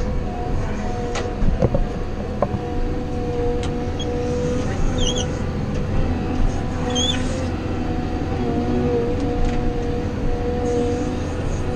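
Wheel loader's diesel engine and drivetrain running steadily under way, heard from inside the cab, with a steady whine over the low rumble. A few knocks and rattles come in the first couple of seconds as it drives over rough dirt.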